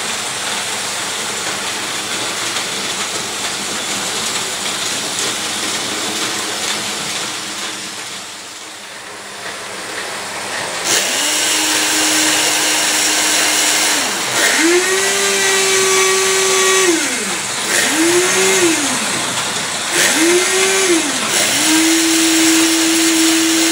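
A Märklin model train running on the track, its noise dipping about eight seconds in. From about eleven seconds the small electric motor of a Märklin model crane whines in five short runs as the grab is worked, each run rising in pitch as it starts and falling as it stops.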